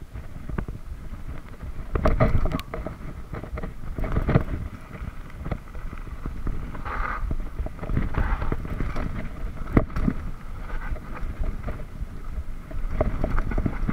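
Mountain bike riding down a rough dirt forest trail: wind rumbling on the microphone over the rattle and clatter of the bike on bumps and roots, with sharp knocks now and then.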